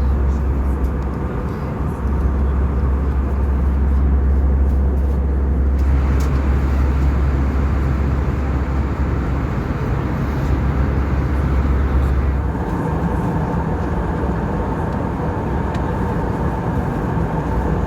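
Steady in-flight cabin noise of an Airbus A320: engine drone and the rush of airflow past the fuselage. The noise grows brighter about six seconds in, and about two-thirds of the way through its deep low rumble drops away.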